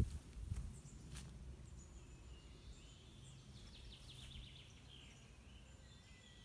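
Quiet garden ambience with faint bird chirps and short song phrases, clustered about two to four seconds in, and a few soft rustles or clicks in the first second.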